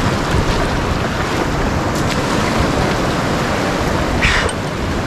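River rapids rushing steadily. A short, louder hiss breaks through about four seconds in.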